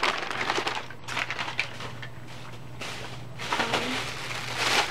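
Plastic bag and paper crinkling and rustling in irregular bursts as items are rummaged through and handled.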